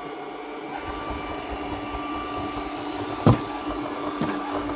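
ANNEW robot vacuum cleaner running in auto mode: a steady motor hum with two held whining tones over the noise of its brushes and suction. There is a sharp knock about three seconds in and a lighter one about a second later.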